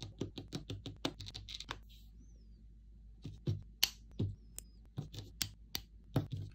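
Small plastic parts of a Blokees Transformers Red Alert figure kit clicking and tapping as they are handled and set down on a hard tabletop: a quick run of sharp clicks, a short pause, then more scattered clicks.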